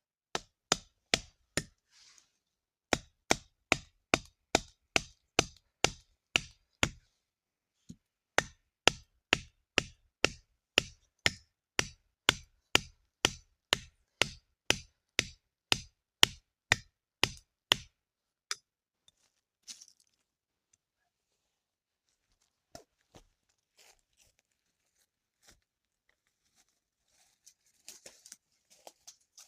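Repeated sharp chopping strikes on wood at about two a second, in three runs with short pauses between them. After about 18 seconds they stop, leaving only a few faint scattered knocks.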